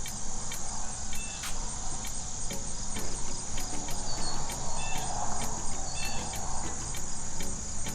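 Crickets chirping: a steady high-pitched trill with evenly repeating pulses.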